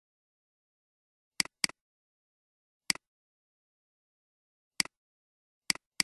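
Computer mouse button clicks, each a sharp press-and-release tick, with dead silence between them: a quick double click about a second and a half in, single clicks around three and five seconds in, and two more close together near the end.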